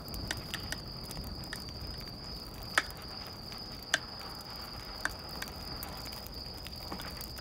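Crickets chirring in a steady high trill, with three sharp clicks about a second apart in the middle.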